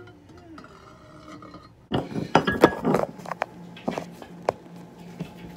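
Kitchen utensils and dishes clinking and knocking together in a quick, irregular run of sharp clinks, some briefly ringing, starting about two seconds in.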